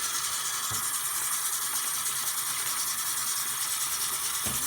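Tap water running steadily into a sink while conditioner is rinsed out of a hair bundle, with a couple of faint soft knocks.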